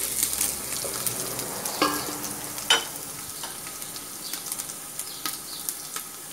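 Chopped garlic and pepper sizzling in hot oil in a metal pot while being stirred with a wooden spoon. The spoon knocks sharply against the pot a couple of times, with a brief ring, about two and three seconds in.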